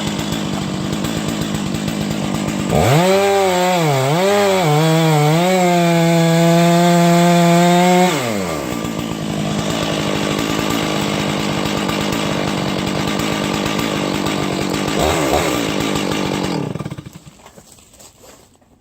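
Chainsaw running. From about three seconds in it is revved up, its pitch dipping twice and then held high until about eight seconds, then drops back to a steadier lower running sound. About seventeen seconds in it is shut off.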